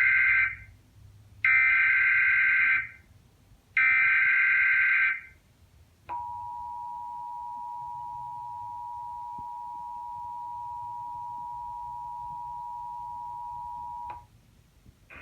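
Emergency Alert System SAME header: three buzzy digital data bursts about a second and a half each, with the first already under way. Then the steady two-tone EAS attention signal starts and holds for about eight seconds before cutting off sharply. Together they open an EAS monthly test broadcast.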